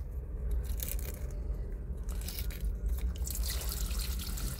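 A brass drain plug on a MerCruiser 4.3 L V6's cooling system is worked loose by hand with a few small clicks. About three and a half seconds in, cooling water starts pouring out of the open drain and splashing onto the bilge floor, as the engine is drained for winterizing.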